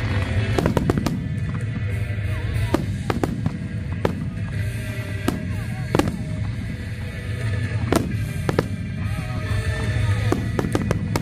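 Fireworks display: a dozen or so sharp bangs at irregular intervals over a continuous low rumble.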